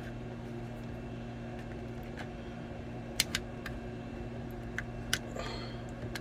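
A steady low hum with a few light, sharp clicks and taps, most of them in the second half, as of small parts being handled.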